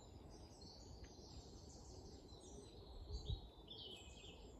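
Faint birdsong: several birds giving short high chirps and trills over a low steady background rumble, with one soft low thump about three seconds in.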